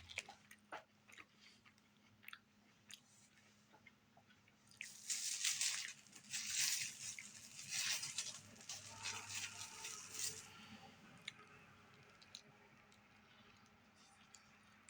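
A person eating close to the microphone: small mouth clicks and chewing, with a louder stretch of crunching and crinkling from about five to ten seconds in.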